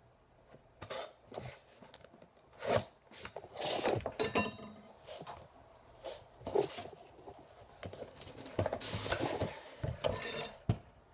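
A cardboard shipping box being handled and opened by hand: scattered taps, scrapes and rustles of cardboard and packing, with a longer rustle about nine seconds in.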